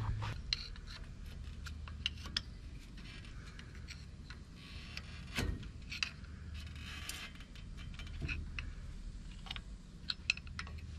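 Scattered light metallic clicks and ticks of a hex key working a brake caliper bolt loose, with one sharper click about halfway through.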